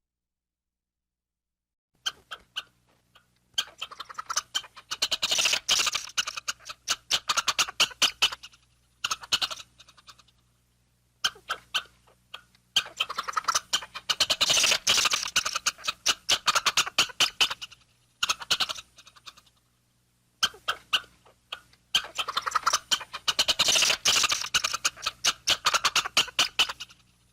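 Monkey chattering: three bouts of fast, rattling pulses, each lasting about seven seconds, with short silences between them.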